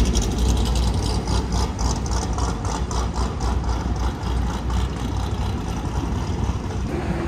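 City street traffic with a heavy vehicle's engine running low and steady close by, its rumble easing off after about five seconds.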